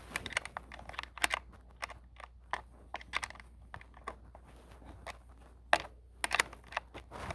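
Irregular light clicks and taps of hands and a tool working on a Ryobi 40 V chainsaw's bar and chain while its chain tension is being set.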